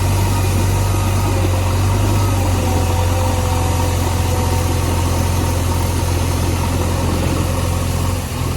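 JCB backhoe loader's diesel engine running steadily with a deep, even drone.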